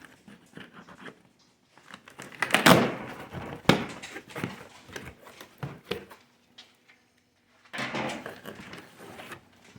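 Cardboard box and packaging of a studio strobe being handled and shaken: irregular knocks and thuds, the loudest about three seconds in, then a burst of scraping and rustling near the end. There is no rattle of broken glass inside, a sign the unit is intact.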